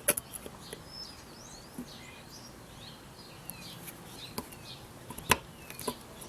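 A few sharp metallic clicks and taps as small retaining clips are worked into the pad-pin holes of a motorcycle's rear brake caliper, the loudest about five seconds in. Faint bird chirps sound in the background.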